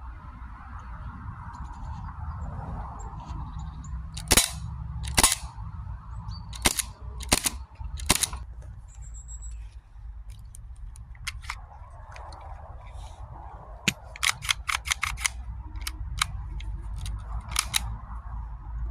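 Beretta-style airsoft pistol firing single sharp shots, a few spaced a second or so apart, then a quick string of about seven shots in rapid succession near the end, over a steady low rumble.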